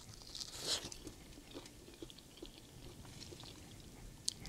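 A person quietly chewing and biting into a grilled chicken wing, with scattered small crunches and mouth clicks; a louder crunch comes just under a second in and a sharp click near the end.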